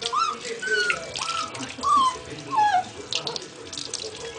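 Tap water running and splashing as a young puppy is rinsed in his first bath, with a run of about six short, high whimpers that slide down in pitch.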